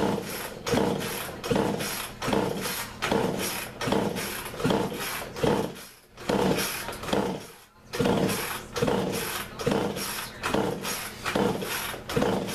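Rhythmic hand-tool rasping strokes worked over a Poulan Pro chainsaw, about one stroke every three-quarters of a second, pausing briefly around the middle.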